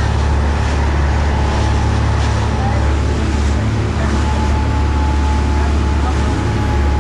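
Dive boat's engine droning steadily while the boat runs at speed, under a constant rush of wind and churning water. A thin, steady high tone joins about four seconds in.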